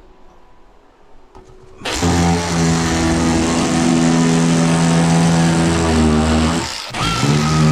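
A handheld power tool's electric motor starts up about two seconds in and runs loud at a steady speed. It stops for a moment about five seconds later, then starts again.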